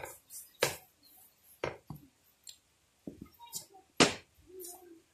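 Scattered metal clinks and knocks as a steering rack, its tie rod and a spanner are handled and fitted by hand. The loudest knock comes about four seconds in.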